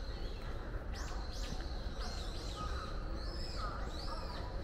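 Many small birds chirping in the trees, short high arched calls overlapping several times a second, over a steady low background rumble.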